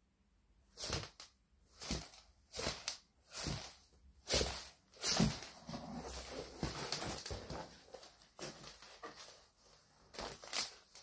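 Cat playing in a cardboard box with a cloth tape measure on a wood floor: short scratchy rustles, coming closer together into near-continuous rustling from about four seconds in.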